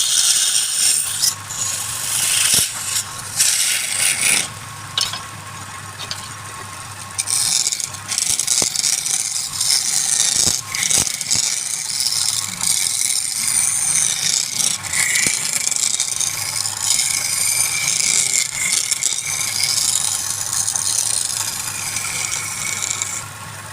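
Wood lathe running with a low motor hum while a turning tool scrapes and cuts the spinning wood. The cutting eases off for a couple of seconds about five seconds in, then resumes.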